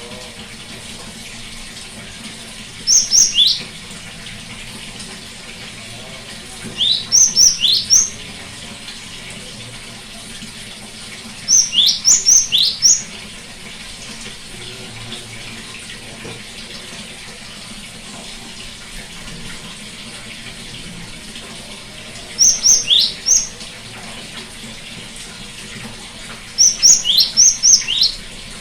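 Gelatik batu (great tit) singing short bursts of quick, high, steeply falling notes, five phrases spaced a few seconds apart, over a steady background hiss like running water.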